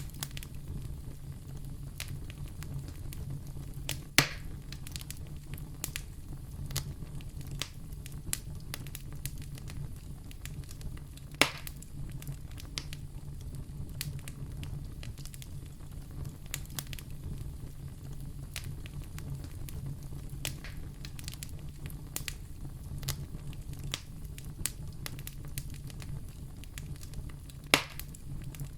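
Wood fire in a fireplace crackling steadily over a low rumble of the flames, with three louder pops: one about four seconds in, one around the middle and one near the end.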